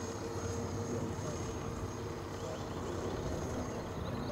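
Small motor and propeller of a Magnus-effect RC plane holding a steady hum in flight, under a low rumble of wind on the microphone.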